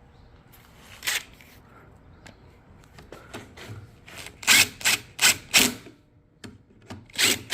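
Ratchet wrench clicking in short strokes as bolts are run down: a single stroke, then four quick ones in a row about halfway through, and one more near the end.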